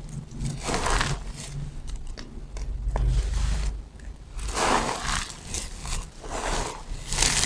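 Dry, brittle soap shavings crunching and crackling as fingers crumble and rub them in a heap, in several separate bursts.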